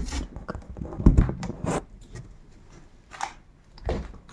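Scattered soft knocks and rustling, the deepest knock about a second in, with a few lighter ones after it.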